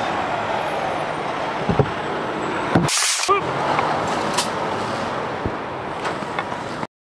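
Semi truck running in a truck yard, a steady diesel rumble, with a short sharp hiss of air brakes about three seconds in. The sound cuts off abruptly near the end.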